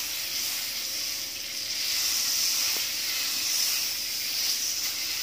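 Butter sizzling steadily as it melts on a hot tawa griddle.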